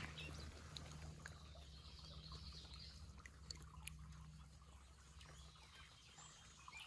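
Near silence: faint stream-side ambience with a low steady hum, a few faint ticks and occasional faint bird chirps.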